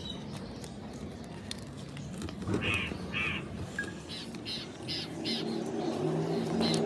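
Crows cawing: two harsh caws about two and a half seconds in, then a quicker run of four shorter, higher calls, and more near the end.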